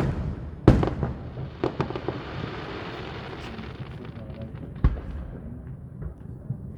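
Aerial fireworks bursting: a loud bang at the start, another under a second later, a few smaller pops, and another loud bang about five seconds in, with a steady hiss between them.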